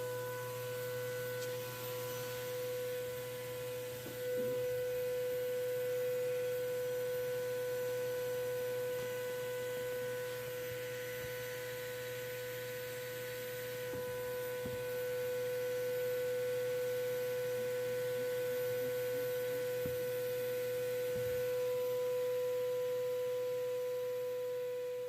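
Shop vac motor running on its blower side with a steady, unbroken whine, pushing air into a taped-up car tailpipe to pressurise the exhaust for a leak test. A few faint knocks are heard along the way.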